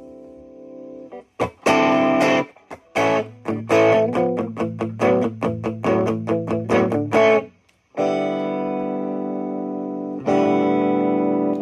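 Electric guitar played through a Fender Japan SL-22SC combo amp, being tested after its broken gain pot was replaced. A quick run of short, choppy chords and notes stops abruptly, then two chords are struck and left to ring out.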